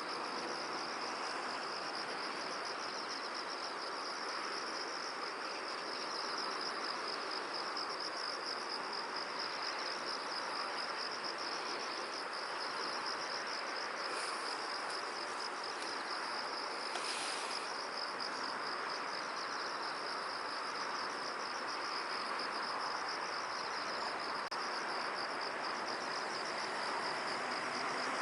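Crickets or similar field insects trilling steadily, a fast, even pulsing high chirr, over a soft steady hiss. A brief extra chirp cuts in a little past halfway.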